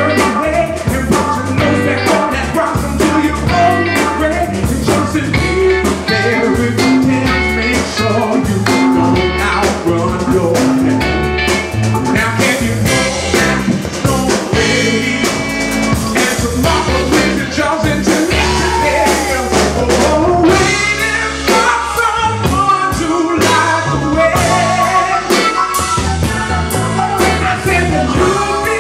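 Live soul band playing a song: a male lead singer sings into a microphone over electric guitar, bass guitar and drum kit, with a steady beat throughout.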